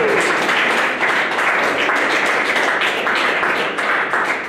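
Audience applauding, many hands clapping together, starting to fade near the end.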